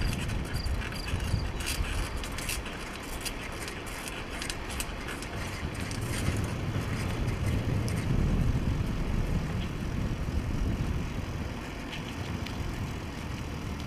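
Bicycle ride on a paved road: a steady, unevenly fluctuating low rumble of wind on the microphone and tyre noise, with light rattling clicks from the bike over the first few seconds.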